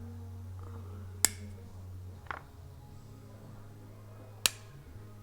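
Cutters snipping through the plastic cage on top of a motorcycle MAP sensor: two sharp snaps, about three seconds apart, with a softer click between them, over a low steady hum.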